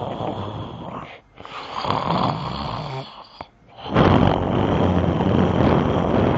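Snoring in slow breaths, with two brief pauses, about a second in and just after three seconds, and louder from about four seconds on.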